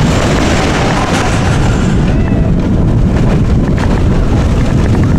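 Expedition Everest roller coaster train running along its track, heard from the front seat: a steady loud rumble with wind buffeting the microphone.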